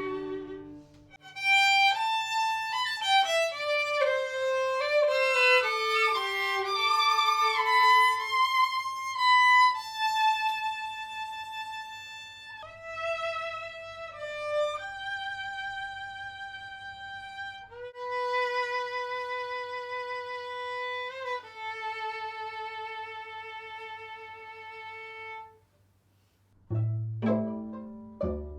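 Unprocessed recording of a violin from a string quartet playing alone: a quick falling run of notes, then long held notes with vibrato, stopping a couple of seconds before the end. Near the end, low plucked pizzicato notes begin.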